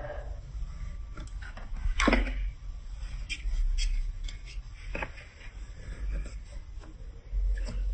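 Plastic marble-run building blocks being handled, making scattered clicks and knocks. The sharpest knock comes about two seconds in and another at about five seconds, over a low steady rumble.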